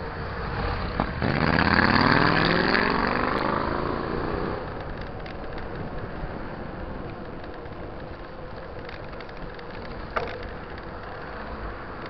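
A cruiser-style motorcycle passes close by, its engine note sliding down in pitch as it goes past and fades over a few seconds. Steady wind and road noise follows.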